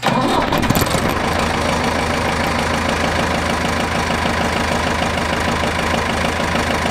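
Ford 5000 tractor engine, just started and running steadily at an even speed; it comes in abruptly at the start.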